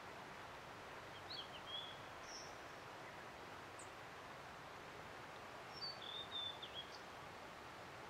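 Blue-and-white flycatcher singing two short phrases of high whistled, gliding notes, one about a second in and one near six seconds, over the steady rush of a river.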